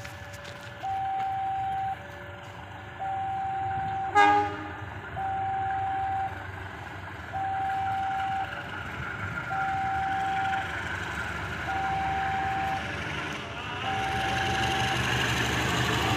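Railway level-crossing warning alarm sounding a repeating electronic tone, each tone about a second long with a lower second tone between the first few, while a diesel locomotive approaches. The locomotive gives a short horn toot about four seconds in. Its engine and wheel noise grows louder over the last several seconds.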